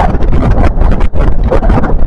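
Wind buffeting the microphone of a camera set low beside the track: a loud, gusty rumble with irregular crackling pops.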